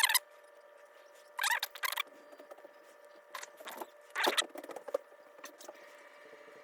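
Small metal padlock parts scraping and clicking against each other in short bursts, four times, as the Master Lock is handled and reassembled.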